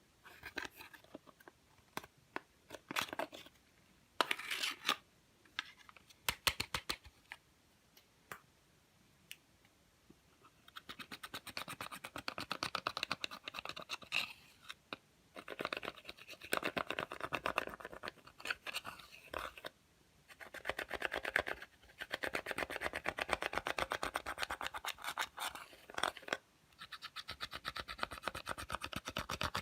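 Slime being kneaded and pressed by hand, popping and crackling as trapped air bubbles burst. Scattered single clicks for about the first ten seconds, then four long runs of rapid crackling separated by short pauses.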